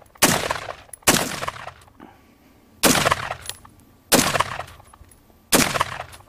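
AR-15 rifle in 5.56 firing five single shots, one every second or so, each crack trailing off in a short echo.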